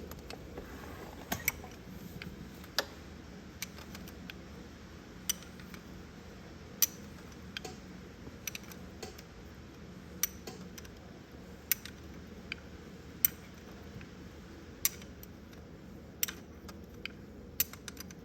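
Hand tools clicking and tapping on metal engine parts in short, sharp, separate strikes, roughly one every second or so, over a faint low background hum.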